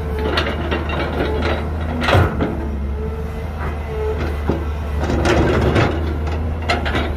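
Heavy diesel earthmoving machinery (excavator and dump truck) running with a steady low drone, with repeated metallic clanks and knocks. The loudest knocks come about two seconds in and in a cluster between five and six seconds.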